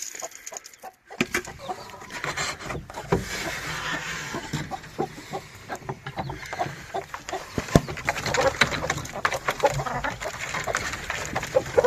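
A group of chickens calling, a steady run of many short clucks and peeps. Occasional sharp knocks sound among them.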